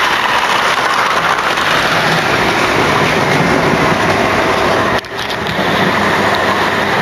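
Model railway train running on the layout track: a steady running noise of the wheels and motor, with a brief drop in level about five seconds in.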